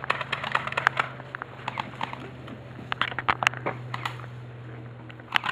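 Scattered sharp pops and clicks at irregular intervals, airsoft guns firing during play, over a steady low hum.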